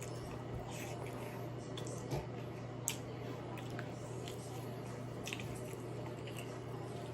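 Wet squishing and scattered small clicks of hands peeling and eating saucy seafood boil, with a steady low hum underneath.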